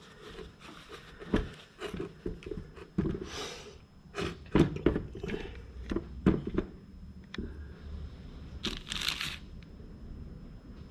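Hands handling plastic fuel pump and filter parts: a run of small clicks and knocks, with two short bursts of rustling, about three seconds in and again near nine seconds.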